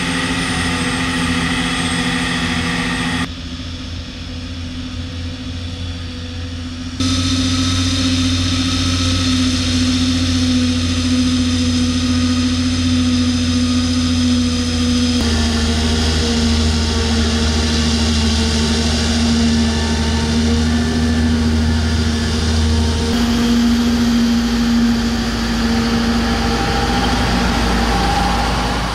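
John Deere self-propelled forage harvester chopping whole-crop silage, with tractors hauling trailers alongside: steady, loud engine and chopper noise with a strong droning tone. The sound changes abruptly four times, briefly quieter in the first few seconds.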